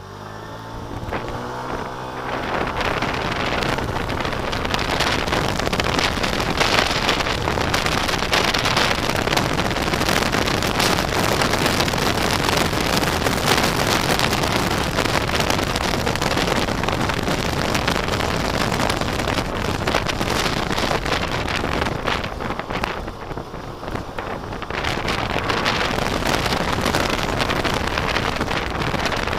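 SYM scooter's engine revving up as it pulls away, its pitch rising over the first two seconds. Wind then buffets the microphone over the engine and road noise at riding speed. The noise dips for a couple of seconds about three-quarters of the way through, then builds again.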